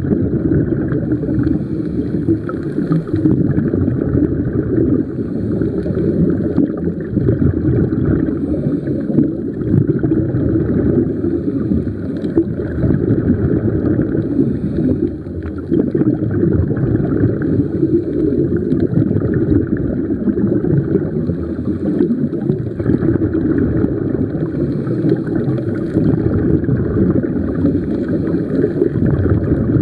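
Steady, muffled underwater rumble picked up by a submerged camera, with a few brief dips in level.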